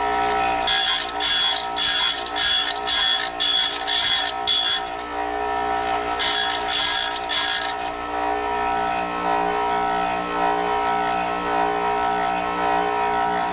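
Bench grinder with a diamond wheel running steadily while a tungsten electrode is fed through a guide against the wheel. The tip grinds in a run of short scrapes about two a second, about eight in all, then three more after a pause.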